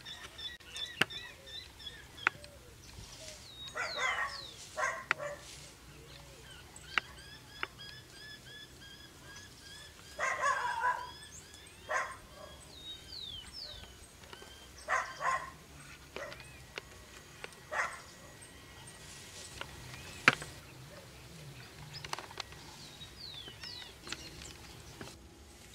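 Crimson-crested woodpecker striking the bark as it feeds on ants: single sharp taps every few seconds. Behind them, many small birds chirp, and a few short, rough, louder bursts come and go.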